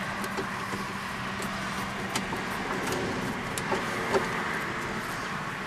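Scattered small clicks and light knocks of a driver turning a screw up into the underside of a pickup's glove box, over a steady background hum.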